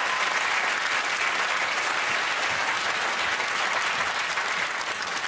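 Studio audience applauding steadily, dying away at the end.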